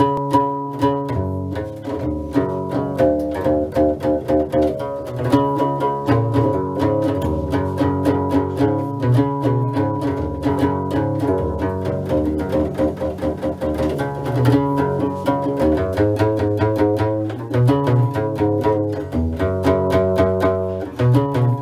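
Guembri (sintir), the Moroccan three-string bass lute with a skin-covered body, played solo. It plucks a fast, steady rhythmic pattern of low bass notes with sharp percussive attacks.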